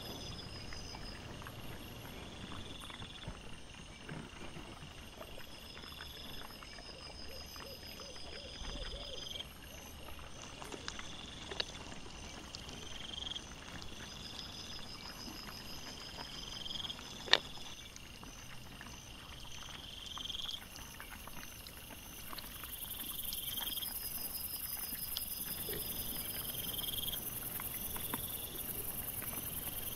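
Night insects chirping in regularly repeating pulsed calls. A single sharp click comes a little past halfway, and in the last third a steady high-pitched insect hiss joins in.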